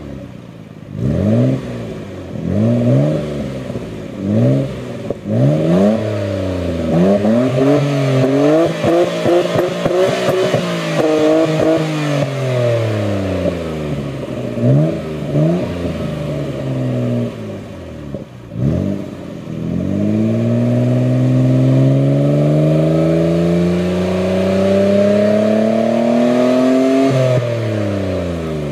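Nissan Skyline GT-R R33's RB26DETT 2.6-litre twin-turbo straight-six revved while parked, heard right at the exhaust tip. It starts with a run of quick throttle blips, about one a second, then longer wavering revs. In the second half the revs climb steadily for about seven seconds and fall back near the end.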